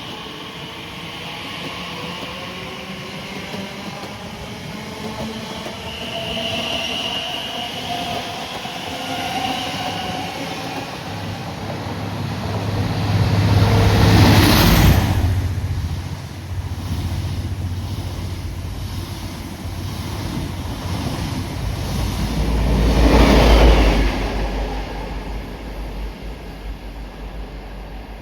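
Class 345 electric multiple unit pulling away from a station, its traction motors whining in several tones that rise in pitch as it accelerates. Wheel and track noise swells loudly twice, about halfway through and again near the end.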